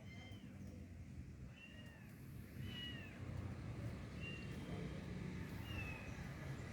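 A hungry kitten mewing: about five short, high-pitched mews, each rising then falling, over a low background rumble.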